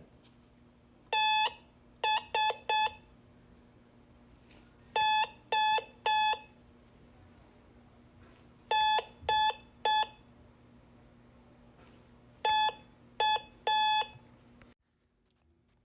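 Morse code beeps: one steady electronic tone keyed into short and long beeps, dots and dashes, sent in four separate groups a few seconds apart.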